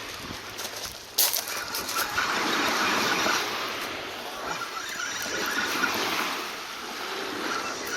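Sea water washing and splashing, with wind on the microphone, and one sharp knock about a second in.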